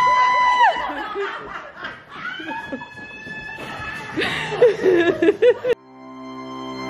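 People laughing at a dinner table, with a burst of quick, pulsing laughter about four seconds in that cuts off abruptly near the end.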